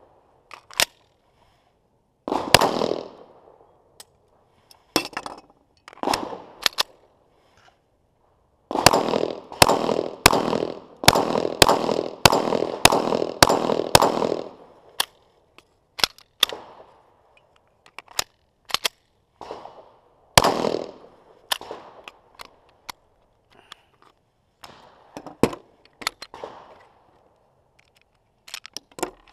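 9mm semi-automatic pistol firing MAXXTECH 115-grain steel-case ammunition, which the shooter found under-pressured and inconsistent. Single shots come with pauses and small mechanical clicks of handling between them, and a quick string of about ten shots, roughly two a second, sits in the middle.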